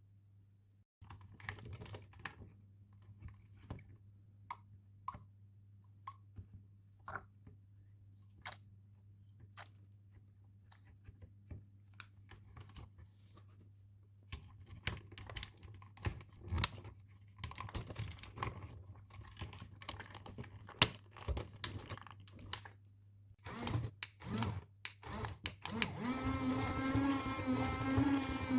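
Hard plastic toy parts clicking and snapping as they are handled and fitted together, sparse at first and busier about halfway through. Near the end a small electric motor starts up and runs steadily with a buzzing whir.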